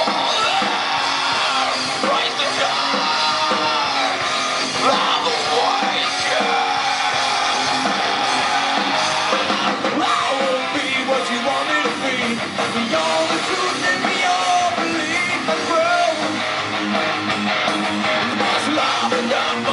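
Live rock band playing a heavy rock song: amplified electric guitars and drums under a lead vocal that is sung and shouted.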